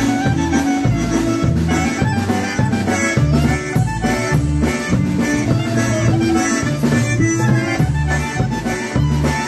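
Live polka band playing a concertina polka, the concertina carrying the melody over a steady oom-pah bass beat.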